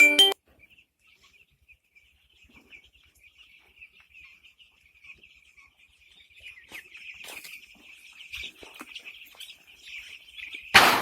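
Many chicks peeping together in a continuous high chatter, faint at first and growing louder, with a short loud noisy burst near the end.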